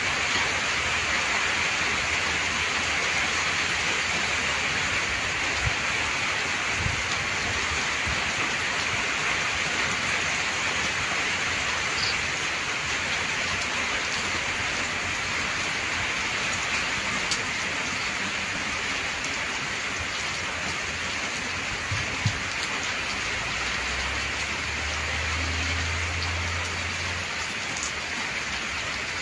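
Gentle rain falling steadily on open pasture, a continuous hiss with the odd faint drip, and a low rumble for a few seconds near the end.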